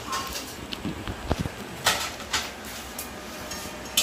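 Kitchen clatter: a few sharp knocks of utensils and cookware, about two seconds in, over low room noise.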